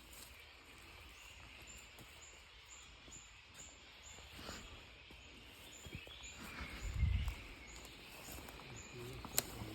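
Faint outdoor ambience with a regular high chirp repeating about two to three times a second. A low thump comes about seven seconds in, and a sharp click near the end.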